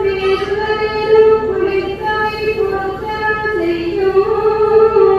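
A high voice singing a slow melody in long held notes, stepping from pitch to pitch.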